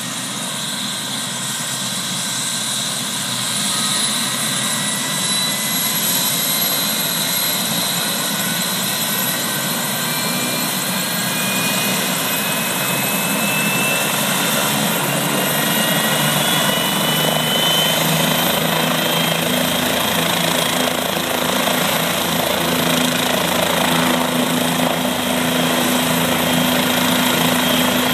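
ALERT air-ambulance helicopter running, a steady turbine and rotor noise with a high whine that slowly rises in pitch as the sound grows gradually louder.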